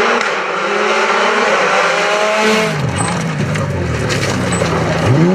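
Rally car engine at high revs. The pitch falls steeply about halfway through as the car slows or passes, runs low for a couple of seconds, then rises sharply again near the end as it accelerates.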